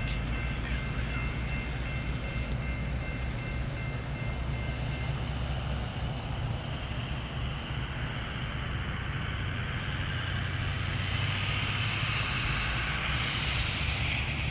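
Train rolling past, a steady rumble of wheels on rail, with a faint high ringing tone that rises through the second half.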